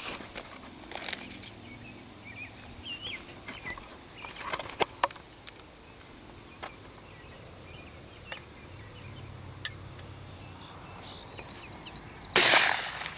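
A single shot from a 12-gauge single-shot, break-action Winchester Cooey shotgun near the end, a sudden loud blast with a short tail of echo. A few faint clicks come before it.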